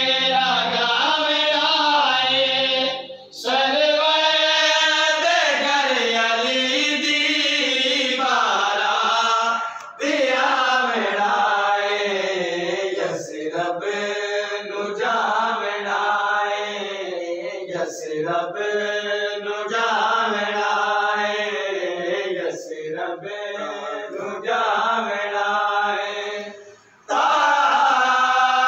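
A single voice chanting in long, held, wavering notes, phrase after phrase, with brief pauses between phrases.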